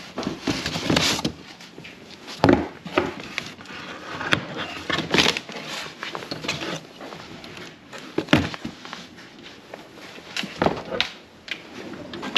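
A ChargePoint home EV charger and its coiled charging cable being handled in their cardboard packaging: irregular knocks, clicks, rustles and scrapes of cardboard, plastic wrap and the charger's housing.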